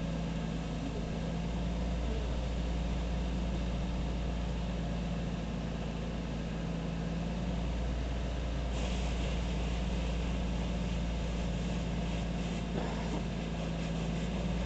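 A heavy vehicle's engine idling steadily with a low hum. A hiss comes in about nine seconds in and carries on over it.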